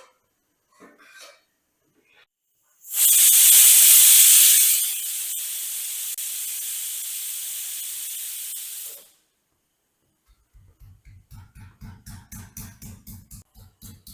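Steam hissing out in a loud burst for about six seconds, strongest at first, then steadier, and stopping abruptly. Near the end a soft rhythmic pulsing begins, about three beats a second.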